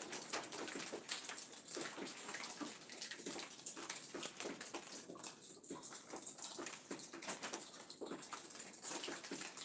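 Rain pattering on leaves, plants and gravel, with many irregular drips and taps over a steady high hiss.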